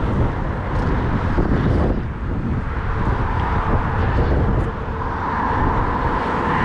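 Steady freeway traffic noise from the I-15, with wind buffeting the microphone. A smoother hum from a passing vehicle comes up about halfway through.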